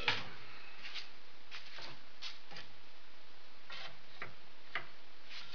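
Scattered light wooden clicks and taps, about ten of them at uneven intervals, as a chair seat slat and scrap-wood spacer blocks are handled and set in place on the frame, over a steady faint hiss.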